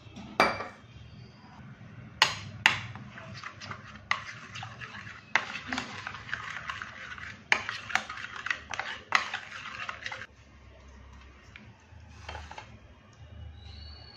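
A steel spoon knocking and scraping against a bowl as curd and ground spices are stirred into a marinade: a few sharp knocks in the first three seconds, then quick, busy clinking and scraping for about six seconds that stops about ten seconds in.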